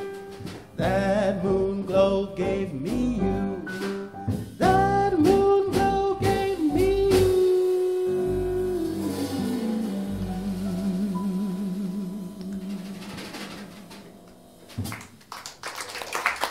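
A jazz quartet of male singer, piano, double bass and drums ends a slow ballad: the voice sings the last phrase, holds a long final note that slides down, and the band's closing chord rings and fades. Audience applause starts about a second and a half before the end.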